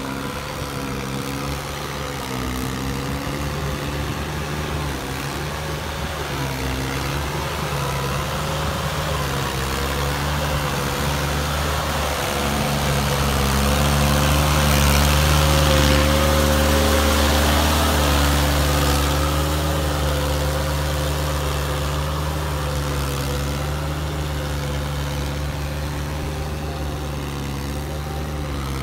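Sonalika GT22 mini tractor's diesel engine running steadily under load as its rotavator puddles a flooded paddy field, with a rushing churn of mud and water. It grows louder as the tractor passes close, about halfway through, then eases off as it drives away.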